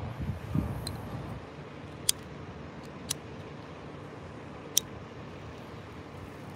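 Faint outdoor background with a low rumble in the first second, then three sharp, isolated clicks: about two seconds in, three seconds in and near five seconds in.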